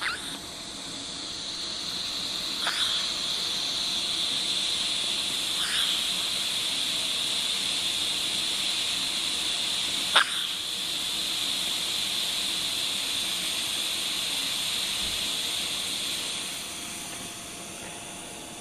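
Hiccups: four short, sharp hiccups a few seconds apart, the one about ten seconds in the loudest, over a steady hiss.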